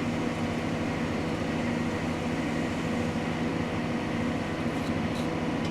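Steady drone of a John Deere 8345RT tractor's diesel engine under power-take-off load, heard from inside the cab, while the J&M grain cart's unloading auger runs and dumps corn.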